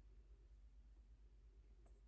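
Near silence: quiet room tone with a low steady hum and one faint click near the end.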